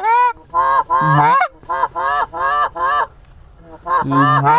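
Canada goose call blown in a quick run of loud honks and clucks, each note breaking sharply upward in pitch, calling to a bird overhead; the calling pauses about three seconds in, then starts again.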